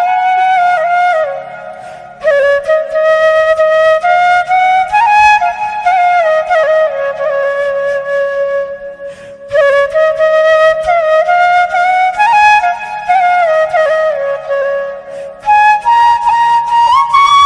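Background music: a slow solo melody of held and sliding notes, with brief pauses between phrases.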